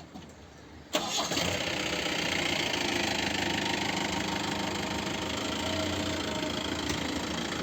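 A safari jeep's engine running with road noise, steady and loud, coming in abruptly about a second in.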